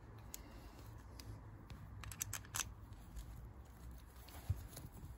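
Faint small clicks and rattles of the Yamaha XV535 Virago's aluminium front brake lever and pivot bolt being fitted into the master cylinder by hand, with a quick cluster of clicks about two seconds in.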